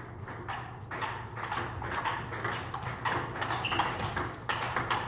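Table tennis ball clicking back and forth between the bats and the table during a rally, in quick, uneven strokes.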